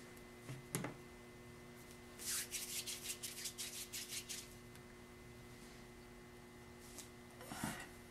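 Hands working plasticine clay: a soft knock, then a run of about a dozen quick rubbing strokes lasting about two seconds, and another short rub near the end, all faint over a steady low hum.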